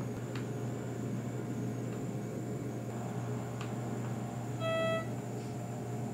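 Steady low hum of the hospital room with a few faint clicks. About four and a half seconds in comes a single short electronic beep.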